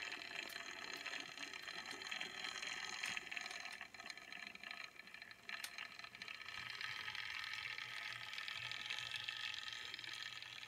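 HO scale Dockside switcher's small electric motor and gearing whirring steadily at slow speed, with light clicks from the wheels on the rails. The motor was freshly cleaned and oiled and is running smoothly. The whir dips briefly about four seconds in.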